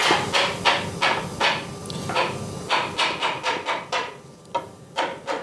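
A gloved hand brushing wood chips and sawdust off a freshly machined log surface in quick, scratchy swipes, about three a second, thinning out near the end.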